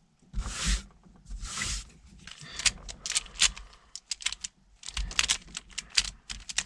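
Plastic twisty puzzles being handled: two brief rustling slides, then from about two seconds in a quick, irregular run of sharp plastic clicks and clacks.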